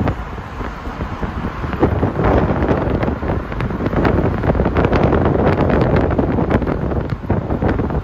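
Wind buffeting the microphone over the steady rumble of a vehicle moving on the road, with the loudness rising and falling in gusts.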